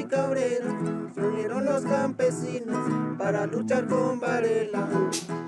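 Acoustic guitar music, plucked and strummed strings playing a steady run of notes.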